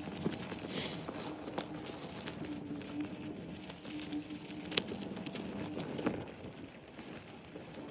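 Domestic birds in a pen giving a low, steady call again and again, each held about half a second to a second, with scattered sharp clicks and knocks; the loudest knock comes a little under five seconds in.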